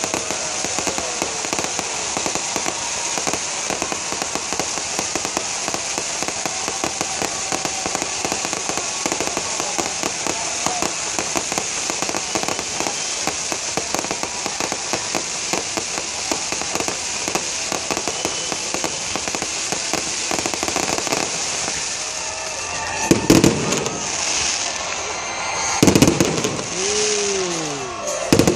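Fireworks display: a dense, continuous crackling over a steady hiss from fountains of sparks. Near the end come three loud booms, a couple of seconds apart.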